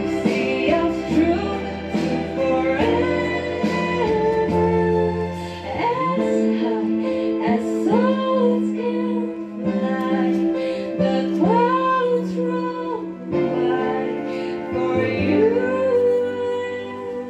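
A woman singing solo into a microphone over instrumental accompaniment. She holds long notes, sliding up into several of them.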